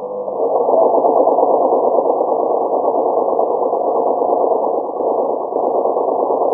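Domestic sewing machine running at a steady speed, stitching a line along a hem; it starts up right at the beginning.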